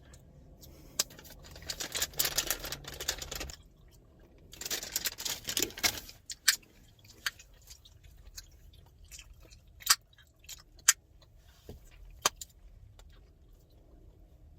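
Chewing gum being cracked in the mouth: sharp single snaps every second or two, the loudest about ten and eleven seconds in. There are two longer stretches of smacking and chewing in the first half.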